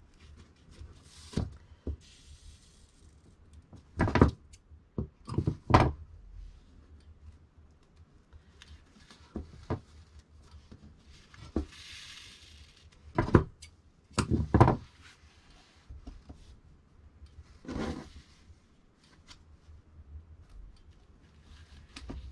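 Tailor's shears and jacket fabric handled on a worktable during thread tracing. About eight scattered knocks as the shears and hands meet the table, with soft rustling of fabric and pulled thread in between.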